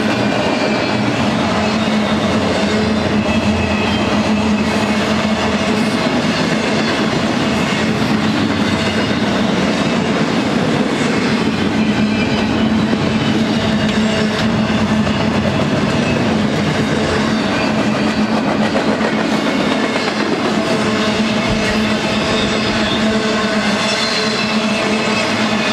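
Intermodal freight cars carrying double-stacked containers and trailers rolling steadily past, their wheels running on the rails with a constant low hum and no change in loudness.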